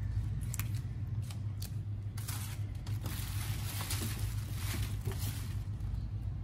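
Red amaranth stems snapping and leaves being stripped and rustled by hand, in a series of short crisp snaps and rustles, busiest in the middle. A steady low hum runs underneath.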